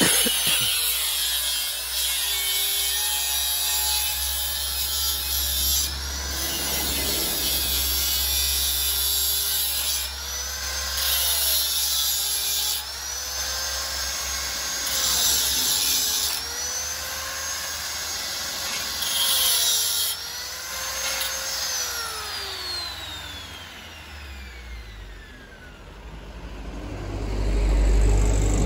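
Electric angle grinder cutting steel pipe: the motor's whine dips each time the disc bites into the pipe and rises again between cuts. After about 21 seconds it is switched off and winds down with a steadily falling whine. A low engine rumble swells near the end.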